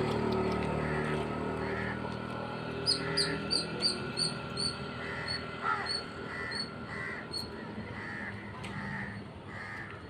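Birds calling: a run of short calls repeated every half second or so, with quicker high chirps joining about three seconds in. At the start a passing vehicle fades away.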